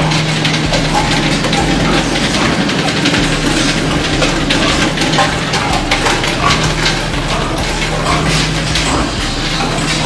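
Metal farrowing crates clinking and rattling again and again over a steady low machine hum in a pig barn.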